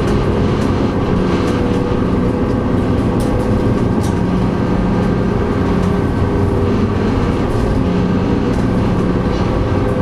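SeaBus passenger ferry's engines running steadily under way, a constant low hum with steady tones, heard from on board.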